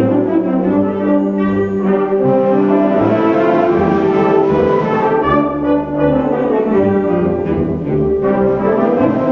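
A band playing live, with brass instruments to the fore: sustained chords over a moving bass line.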